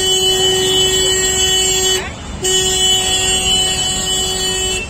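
A horn sounding one steady note in two long blasts, broken by a short gap about two seconds in, over the noise of road traffic.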